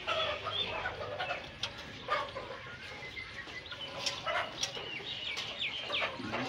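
Chickens clucking and calling, with several short high sliding calls in the second half and a few light clicks.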